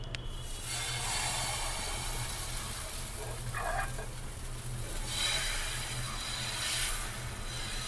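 Dosa batter sizzling with a steady hiss as it is poured onto a hot nonstick pan and spread in circles with a steel ladle. The sizzle begins within the first second.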